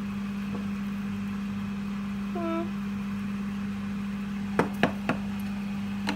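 Cookware knocking against an electric hob as pans are moved: three sharp knocks about four and a half to five seconds in, and another near the end, over a steady low hum.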